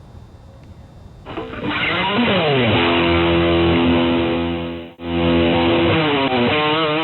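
Electric guitar music comes in loud about a second in. It slides down in pitch into a held chord, breaks off briefly, then holds again and slides down once more, its pitch wavering near the end.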